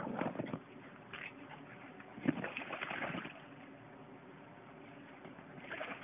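Boston terrier puppies splashing and scrambling in a shallow inflatable paddling pool, with a few sharp knocks near the start and about two seconds in, then a brief rush of splashing.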